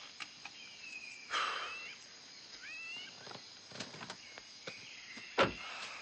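Forest ambience with several short high animal calls that slide up and down in pitch, a few faint ticks, and one sharp thump about five and a half seconds in as the driver climbs out of the Jeep.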